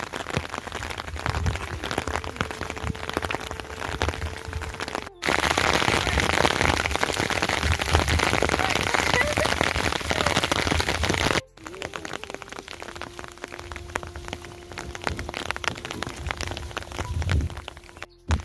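Steady rain falling, an even hiss dotted with dense drips pattering on surfaces. It breaks off for a moment three times, and after the second break, about eleven seconds in, it is quieter.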